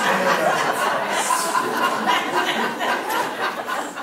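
A small congregation laughing together, with chuckles and a few voices mixed in. The laughter eases a little near the end.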